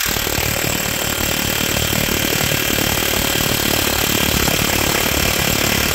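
Milwaukee half-inch cordless impact wrench hammering steadily under heavy load, driving a 1-5/16" impact socket to torque-turn a Cat C18 main bearing cap bolt.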